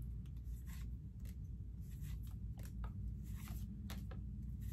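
Trading cards being slid one behind another in the hand, giving short, soft scraping clicks at irregular intervals over a low, steady background hum.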